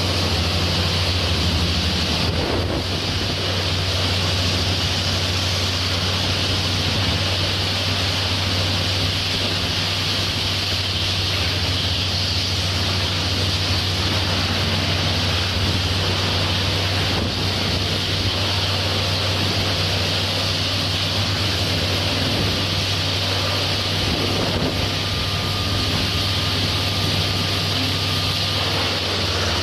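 Wood chipper running steadily, a constant low engine drone under a dense, even hiss.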